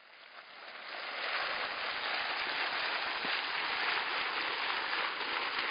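Hydrothermal mud pot boiling vigorously: hot grey mud churning and bubbling in a dense, even, continuous noise. It fades in over the first second or so, then holds steady.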